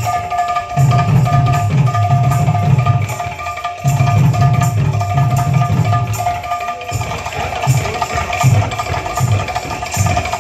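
Kirtan music: a hand drum played in a fast rhythm under regular ringing metallic strikes of hand cymbals. The drumming turns sparser near the end.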